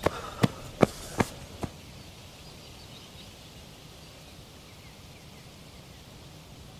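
A run of sharp, evenly paced knocks, about two and a half a second, stops about a second and a half in. Then comes quiet outdoor ambience with a few faint high chirps.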